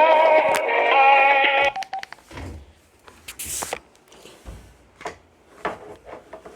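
Music played down a telephone line, thin and narrow-band, cuts off suddenly under two seconds in. After it come scattered sharp clicks and a few soft knocks.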